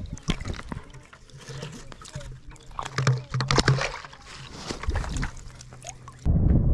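A just-landed speckled trout being handled out of the water: sharp wet clicks and slaps, with low pulsing grunts that are strongest about three seconds in, the croak a speckled trout gives when held. Near the end a loud rushing noise starts suddenly.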